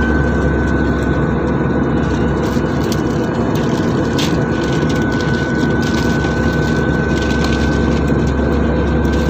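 Airliner cabin noise in flight: the steady rush of jet engines and airflow, with a thin, constant whine over it.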